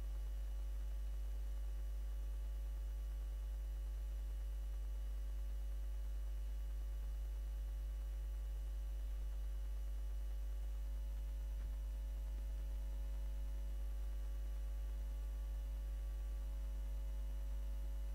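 Steady low electrical mains hum, with a row of fainter even hum tones stacked above it.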